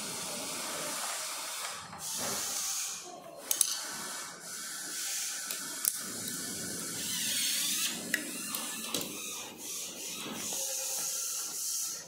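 Hissing, rustling handling noise that swells and fades every second or two, with a few sharp clicks as hands work on the scooter's parts.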